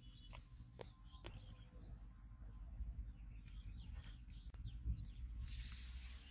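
Birds chirping faintly over a low wind rumble, with a few sharp clicks in the first second or so. About five and a half seconds in, a brief rush of splashing noise as a hooked fish is pulled out of the pond.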